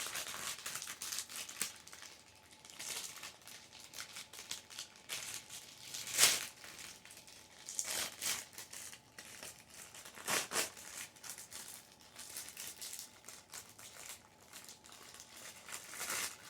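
Packaging being handled and opened: irregular crinkling and rustling, with a sharper crackle about six seconds in.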